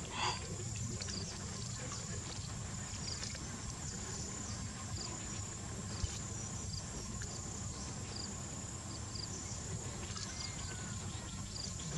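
Steady insect chorus: a continuous high buzz with short chirps repeating over it, above a low rumble. A brief louder call sounds just after the start.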